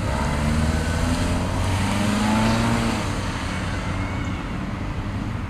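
Car engine accelerating as the car pulls away, its pitch rising over the first few seconds, then easing off as it drives off.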